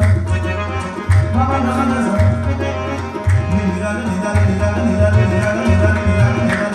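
Qawwali music: tabla playing a steady rhythm of deep, booming strokes under sustained harmonium notes.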